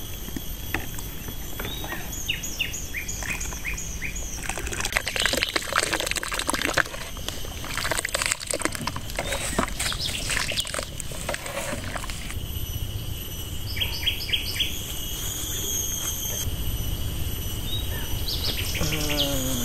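Metal ladles stirring thick mung bean porridge in a large metal pot, with irregular scraping and sloshing, over a steady high insect drone and a few quick runs of bird chirps.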